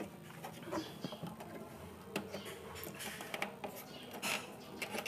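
Scattered light clicks and rattles of hands handling the wiring and plastic parts inside an opened CRT television.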